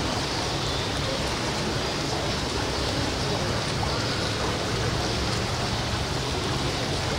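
Steady, even rushing noise with a faint low hum underneath and no distinct events.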